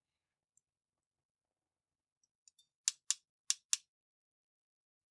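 Ratcheting crimping tool clicking four times in quick succession, about three seconds in, as it is squeezed shut on a blue insulated wire terminal.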